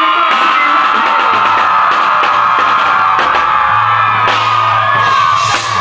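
Loud live rock band music with a crowd cheering and yelling over it, held bass notes and cymbal strokes running under a dense wash of sound.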